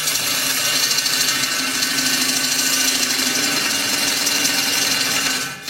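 Electric jigsaw running and cutting through steel sheet, a steady loud saw noise with a low hum, dying away near the end.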